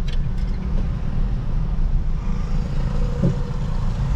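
Street traffic in heavy rain: vehicles running past over a steady hiss of rain, with a heavy low rumble throughout. A brief rising tone sounds about three seconds in.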